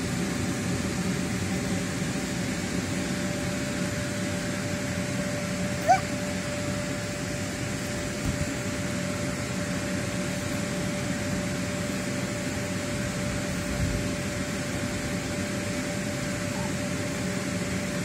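Electric blower of an inflatable bounce house running steadily, a constant hum with rushing air. A short rising squeak about six seconds in.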